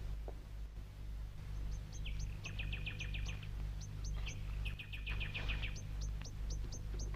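Small birds chirping: short high chirps repeat from about a second and a half in, with two rapid trills in the middle. A steady low hum lies underneath.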